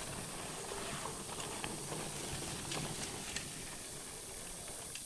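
Steady faint hiss of outdoor background and recording noise, with a few faint ticks scattered through it.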